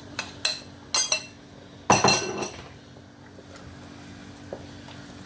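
A metal spoon knocking against a ceramic bowl as the last of the ground ogbono is tapped out into the pot. There are a few sharp clinks in the first second, then a louder clink with a short ring about two seconds in.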